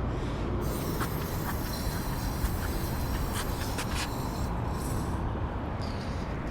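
Wind buffeting the microphone: a steady low rumble with hiss, broken by a few faint clicks.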